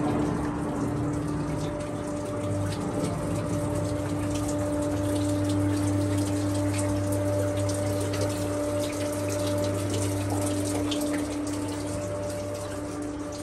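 Running, splashing water with a steady hum underneath.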